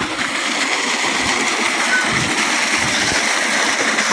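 Steady rushing and splashing of water gushing out of a Marquis 5 hp irrigation pump's 4-inch delivery pipe.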